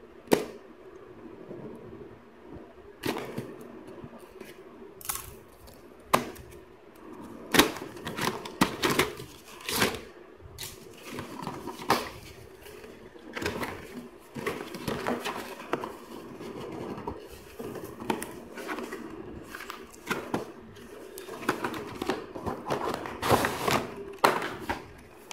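Unboxing handling noise: scissors snipping the seal of a paperboard retail box, then the box being opened and a plastic-wrapped tray pulled out. A run of sharp snips, clicks and paper and plastic rustles.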